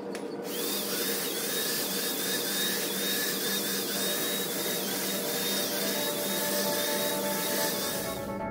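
Handheld electric Wagner paint sprayer running while spraying paint: a loud steady hiss with a high whine that wavers a couple of times a second. It cuts off suddenly near the end.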